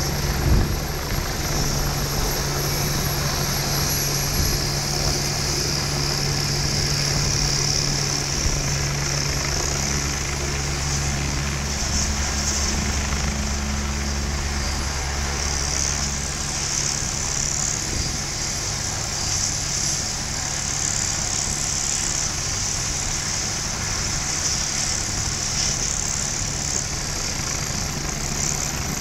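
Helicopter turbine engines and rotors running on a helipad: a steady high turbine whine over a deep rotor thrum. The deep thrum drops away about halfway through as one helicopter lifts off and leaves, and the whine carries on.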